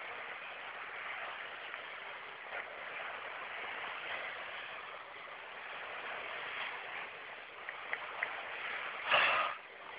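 Steady rush of flowing water. A few faint clicks come near the end, then a brief, louder burst of noise about nine seconds in.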